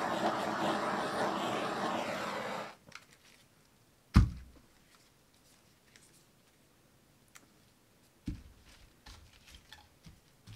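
A steady rushing noise that cuts off suddenly about two and a half seconds in, followed by a sharp thunk about four seconds in and a softer thunk around eight seconds in.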